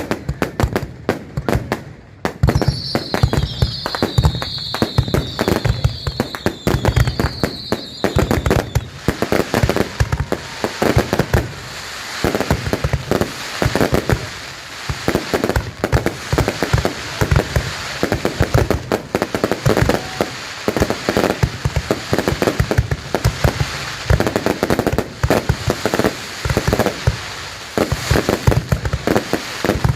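Fireworks going off in a dense, continuous barrage of bangs and crackling reports, many a second. A high wavering whistle slides slowly down in pitch during the first several seconds.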